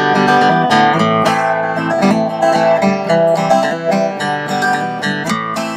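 Acoustic guitar played in a steady rhythm, a run of ringing chords.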